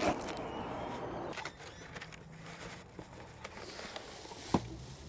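Faint handling sounds as a replacement car side mirror is taken out and checked, with one sharp click about four and a half seconds in.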